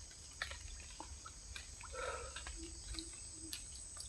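Insects, crickets by their steady high-pitched trill, singing without a break, with scattered faint ticks and three short low notes a little past halfway.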